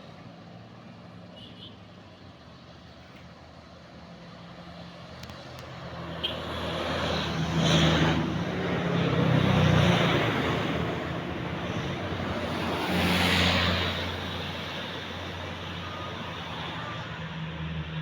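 Roadside traffic: heavy road vehicles drive past close by, their engine and tyre noise building from about six seconds in and swelling three times, around eight, ten and thirteen seconds.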